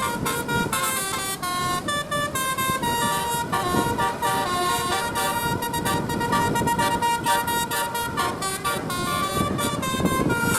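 Bus 'telolet Basuri' musical horn, roof-mounted trumpets, playing a tune in held notes that step from pitch to pitch, over a steady rough background noise.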